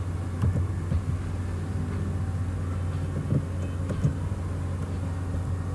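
Steady low background hum with a few scattered light clicks of computer keyboard keys being typed.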